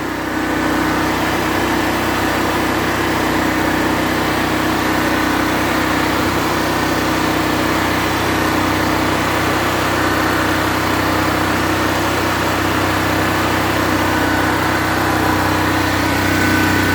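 Generac portable generator's gasoline engine running steadily at a constant speed. Its carbon monoxide sensor is unplugged, which stops the faulty sensor from shutting the engine down.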